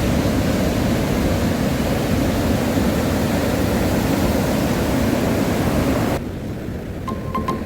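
East Sea surf: a steady, loud rush of waves breaking on the shore, which cuts off abruptly about six seconds in. Background music starts near the end with a few single held notes.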